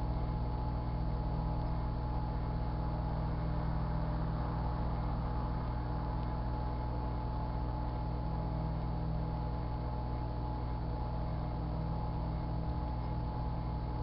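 Sharp Carousel microwave oven running: a steady electrical hum and buzz with a constant tone above it, which the owner puts down to the oven being on its last legs.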